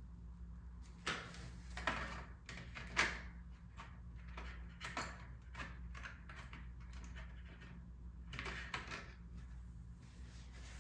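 Paintbrush dragging across paper in short scraping strokes, with a few sharper knocks, over a steady low hum.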